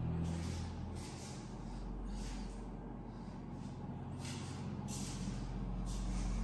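Faint breathing close to the microphone, soft hissing breaths recurring about once a second, over a low steady hum.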